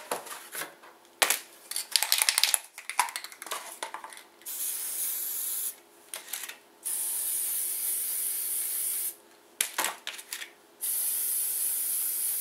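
Aerosol can of disc brake quiet (anti-squeal compound) sprayed in three steady hissing bursts onto the backs of new brake pads; the last burst is still going at the end. Before the spraying, a few seconds of light clicks and knocks.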